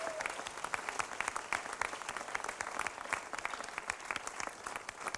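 Crowd applauding: many hands clapping at once in a fairly even run of claps.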